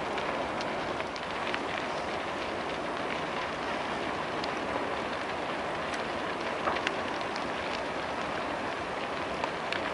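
Large wooden structure burning: a steady roar of flames with scattered crackles and pops throughout, a couple of sharper pops about seven seconds in.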